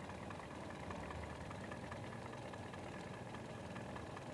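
Toyota Yaris engine idling steadily, with a faint, quick regular ticking over the hum.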